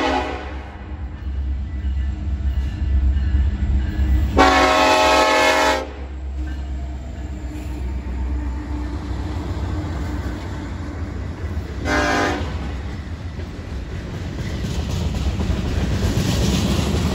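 Freight train diesel locomotive's horn sounding a crossing warning: one blast cuts off just after the start, a long blast comes about four seconds in, and a short one about twelve seconds in. Between the blasts, the locomotive and freight cars rumble steadily past with wheels clicking over rail joints.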